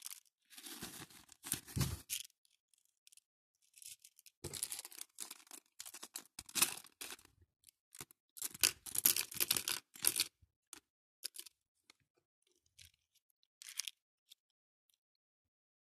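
Plastic bead bags crinkling while acrylic and faux-pearl beads rattle and click into the compartments of a clear plastic organizer box. It comes in irregular bursts, then thins to scattered clicks and goes quiet near the end.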